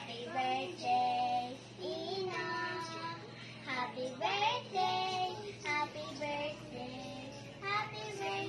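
A child singing a tune in phrases of long held notes.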